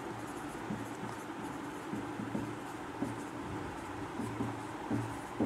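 A marker writing on a whiteboard: a run of short, irregular strokes as a word is written out letter by letter.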